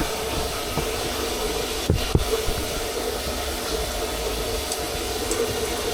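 Sink faucet running water into the basin with its aerator screen removed: a steady rushing hiss. Two light knocks sound about two seconds in.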